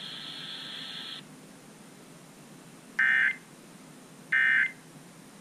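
Emergency Alert System end-of-message data bursts: two identical short, shrill digital chirps about 1.4 seconds apart, the SAME code that closes a broadcast severe thunderstorm warning. Before them a faint hiss cuts off about a second in.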